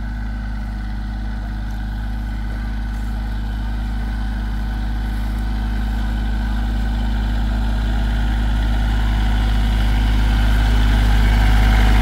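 Small compact tractor's engine running steadily at low speed, growing gradually louder as it approaches.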